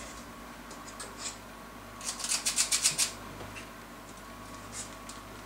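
A quick run of about nine scraping strokes in roughly a second, about two seconds in, from kitchen utensils working cookie dough. Scattered faint clicks and rubs come before and after it, over a faint steady hum.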